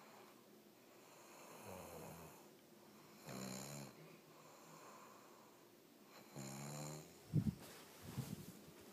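A sleeping person snoring: three rattling snores come a couple of seconds apart. Two brief, sharp noises near the end are louder than the snores.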